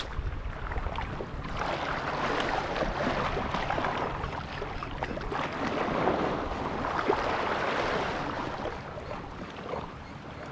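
Small waves lapping and splashing against a shallow coral reef shore, a steady wash that swells and eases gently.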